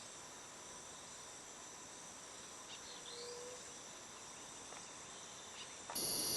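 Steady chorus of crickets and other insects trilling at a high pitch, with a few short bird chirps. Near the end a much louder, steady hiss sets in abruptly.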